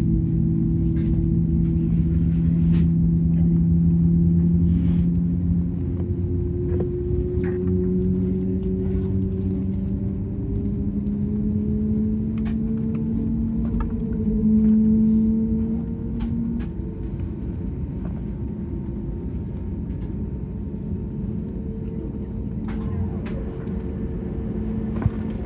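CFM LEAP-1A turbofan of an Airbus A321neo spooling up during its engine start, heard from inside the cabin: a low rumble with humming tones that glide slowly upward, then hold steady from about two-thirds of the way through. A sharp click sounds near the end.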